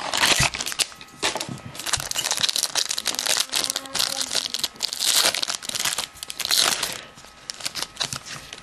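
Foil wrapper of a 2007 Bowman Sterling football card pack being torn open and crinkled by hand: a dense, irregular crackle that thins out about seven seconds in.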